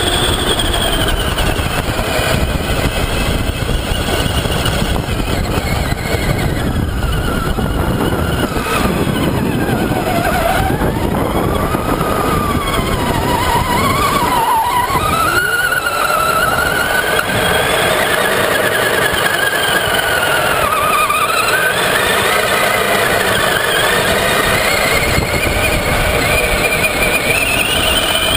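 Traxxas Summit RC truck's electric motor and drivetrain whining, the pitch gliding up and down with the throttle, over a steady rushing noise.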